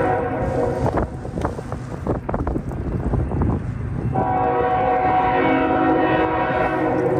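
A multi-tone horn sounds as a chord of several steady notes. It cuts off about a second in, and after a gap of scattered knocks it sounds again in a long blast from about four seconds in.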